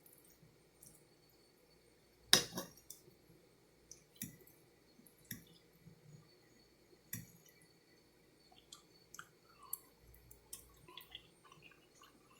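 Quiet eating sounds: scattered light clicks and taps of cutlery on a plate, with mouth sounds; the loudest click comes a little over two seconds in.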